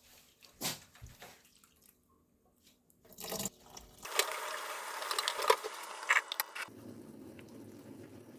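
Liquid for radish jocheong splashing and dripping, busiest from about four seconds in. Near the end it gives way to a steadier, lower bubbling.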